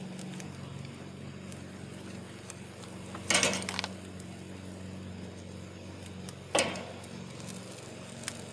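Metal grill tongs clacking and scraping on a charcoal kettle grill's cooking grate as chicken legs are lifted off: two short clatters, one about three seconds in and a sharper one about six and a half seconds in. A steady low hum runs underneath.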